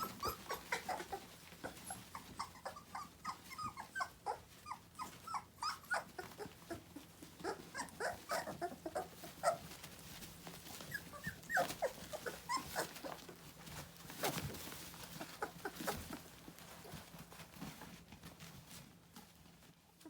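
Two-and-a-half-week-old Saint Berdoodle puppies whimpering and squeaking, many short high cries one after another, thinning out toward the end, with a few soft knocks among them.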